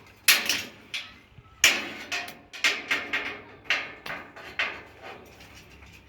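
Hammer blows on metal: about ten sharp, irregular strikes, each ringing briefly, the two hardest in the first two seconds and the rest a little lighter.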